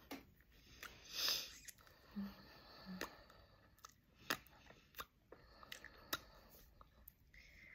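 Faint mouth sounds of lips being pressed and smacked together to spread freshly applied lipstick, with small wet clicks scattered throughout. A louder short rush of breath comes about a second in.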